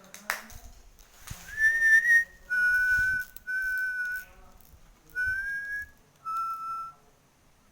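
A series of five whistled notes, each under a second long and separated by short gaps. The first and fourth rise slightly, the others are held steady, and the last note is the lowest.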